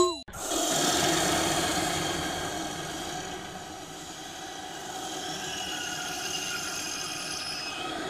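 A steady, noisy rumbling drone with faint ringing tones through it. It comes in about a quarter second in, swells over the first second, then slowly fades.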